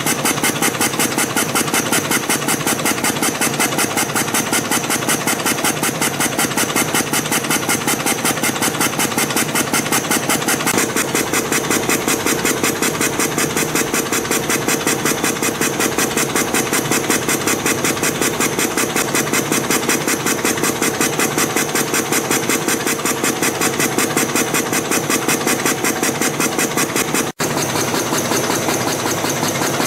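CNC compression spring coiling machine running in production, making a fast, even mechanical clatter as it feeds and coils wire. It breaks off for an instant near the end.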